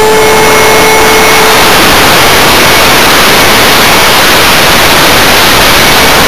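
Loud wind rush over the microphone of an RC plane's onboard camera as the plane flies out of control after a transmitter failure. The plane's motor gives a steady whine that fades out about a second and a half in, leaving only the wind noise.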